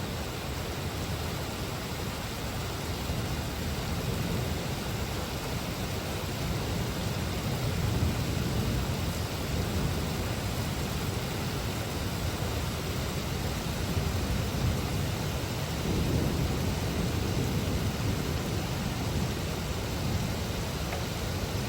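Heavy rain pouring down in a steady hiss, with deeper low rumbles swelling about eight seconds in and again about sixteen seconds in.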